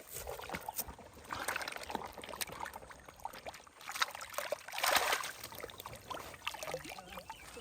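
Water splashing and sloshing in irregular bursts, with two stronger surges, one about a second and a half in and one near the middle.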